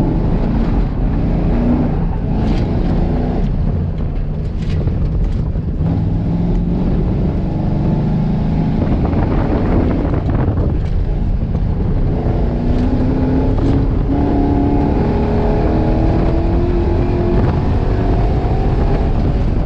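A motor vehicle's engine running, its pitch rising and falling.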